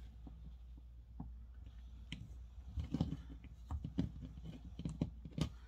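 Scattered small clicks and taps of a tiny rubber food-shaped puzzle eraser being pulled apart and pressed back together by fingers, over a low steady hum.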